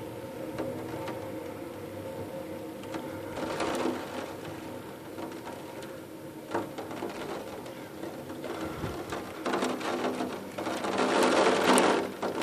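Wind-driven rain spattering against a window pane, with a few sharp ticks on the glass and the rain growing heavier near the end, over a steady indoor hum.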